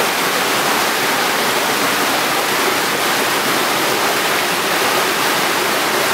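Creek water rushing and splashing over boulders in small cascades: a steady, even rush with little low rumble, picked up by a camera's built-in microphone.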